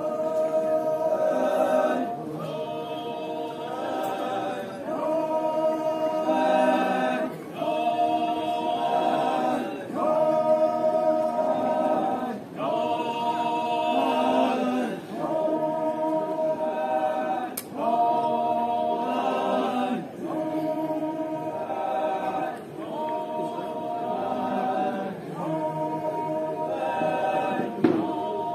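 A group of voices singing a folk chant together, unaccompanied, in repeated phrases of about two seconds with short breaks between them. A sharp click sounds near the end.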